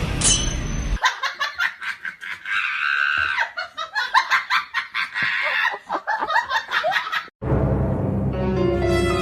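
A burst of rapid, high-pitched laughter lasting several seconds, set between stretches of background music that cuts out about a second in and returns near the end.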